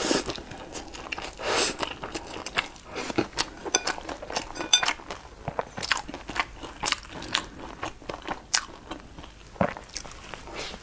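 Close-miked eating: two long slurps of spicy noodles in the first two seconds, then steady wet chewing with many small clicks and crunches, and a bite into a fried roll near the end.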